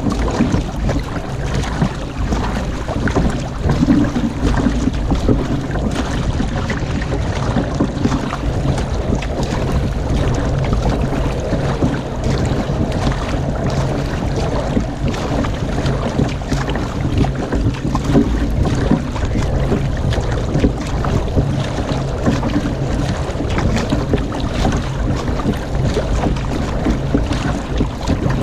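Wind buffeting a bow-mounted camera's microphone over the rush and splash of water as a flatwater racing kayak is paddled steadily, each paddle blade splashing in and out.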